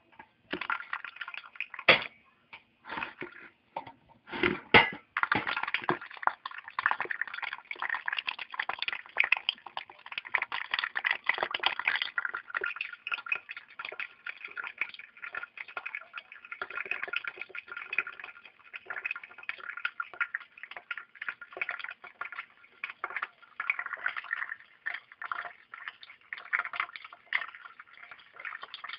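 Liquid gurgling and splashing in a dense, continuous patter of small pops and drips, with a few louder knocks in the first five seconds.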